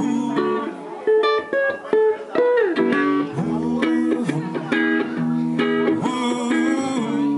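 Recorded reggae-pop music playing: an instrumental passage between sung lines, led by guitar over a steady bass line.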